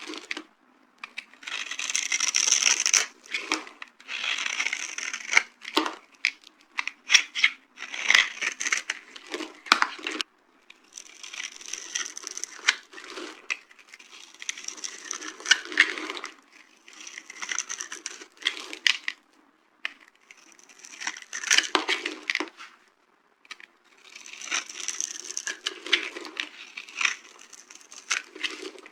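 Dry soap boxes being crushed: bursts of crisp crunching and crackling, each a second or two long, with short pauses between.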